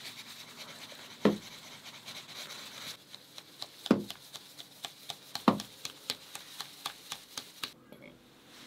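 Flour being sifted through a round-framed hand sieve over a metal bowl: a steady rustling hiss as the sieve is shaken, with sharp knocks of the sieve frame against the bowl. Three of the knocks are louder, and quicker, lighter taps follow in the second half before it stops shortly before the end.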